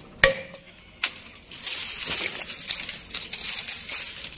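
Dry twigs and thin branches being snapped by hand for firewood. There is a sharp snap about a quarter second in and another near one second, then a dense run of crackling snaps and broken pieces falling.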